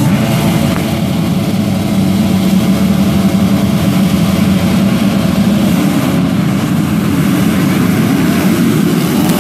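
A full field of motocross bikes on the start line, their engines held at high revs together, then the pack launching off the gate and accelerating away in the second half.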